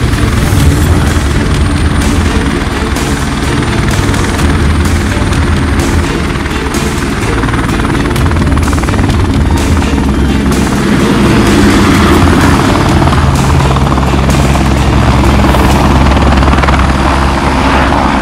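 Helicopter rotors and engines running at lift-off power as the air ambulance climbs away, louder in the second half, with music playing underneath.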